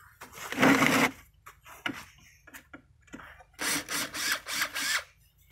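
Cordless drill-driver running in short bursts as it backs screws out of a wooden work table: one burst about half a second in, then a quick series of whining pulses near the end.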